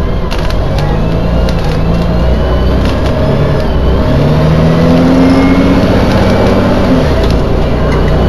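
Dennis Dragon double-decker bus's Cummins LTA10 turbo-diesel heard from inside the bus under way, with a constant low rumble. The engine note climbs twice as the bus pulls, then falls away about seven seconds in.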